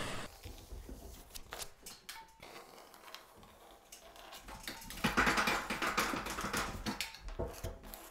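Steel taping knife scraping along a ceiling joint, pushing wet gypsum compound out from under fleece tape to embed it: a run of soft scrapes and small taps, with a longer, louder scrape about five seconds in.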